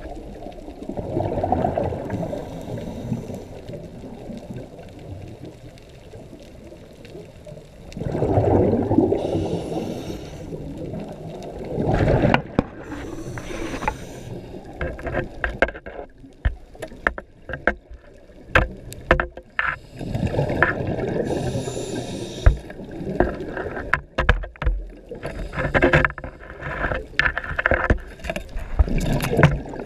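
Muffled underwater noise picked up by a camera held below the surface: rushing water that swells every few seconds, and from about halfway on, many sharp knocks and clicks against the housing and pole.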